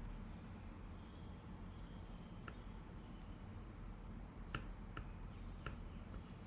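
Faint colour-pencil work on paper over a steady low hum, with four light, sharp clicks in the second half.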